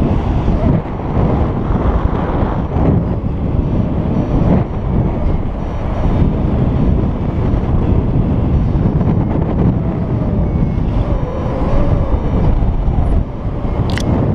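Airflow buffeting the camera microphone in paraglider flight: a steady, loud, low rumble of wind. A single sharp click near the end.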